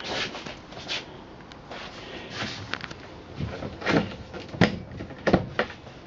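A series of knocks and clunks from cabinet doors and fittings in a semi-truck sleeper cab being handled, the loudest a few at a time between about four and five and a half seconds in.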